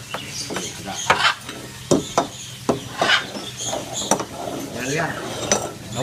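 Small metal dome cups being slid and shuffled over a wooden tabletop, with irregular clinks and knocks as they are moved and set down, the cups being mixed up so that a macaw can pick the one hiding the item.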